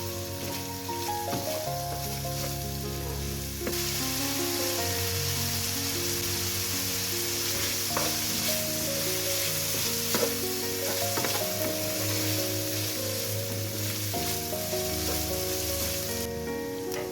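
Food sizzling in a frying pan as it is stirred, with a few light utensil clicks. The sizzle gets louder a few seconds in and drops away near the end. Background music plays underneath.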